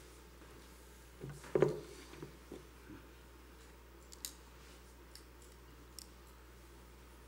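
Handling noises at a pulpit fitted with a microphone: one loud thump about a second and a half in, with a few smaller knocks around it, then a few faint sharp clicks, over a low steady hum of room tone.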